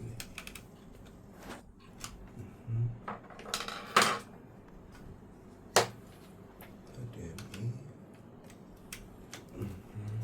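Scattered clicks, knocks and clatter of computer hardware being handled during a graphics card install, with two sharper knocks about four and six seconds in.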